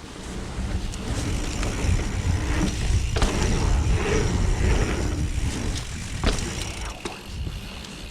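Mountain bike riding fast over a dirt trail: wind rumbling on the microphone and tyres running over rough ground, with the bike rattling and a few sharp knocks from hits on the terrain.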